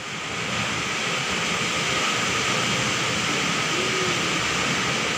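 Heavy tropical downpour with strong gusting wind, a steady dense rush of noise that swells in over the first second.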